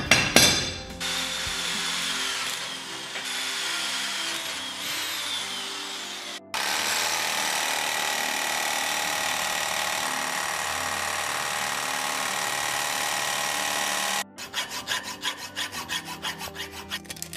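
A few sharp hammer taps on a centre punch, then an electric drill boring into steel, its pitch falling and rising. Next an electric jigsaw cutting the steel bracket steadily for about eight seconds before it stops suddenly, then a hand file rasping the steel in quick strokes, about three a second. Background music runs underneath.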